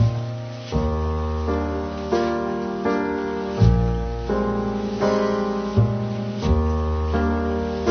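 Background piano music, chords struck about once a second and left ringing.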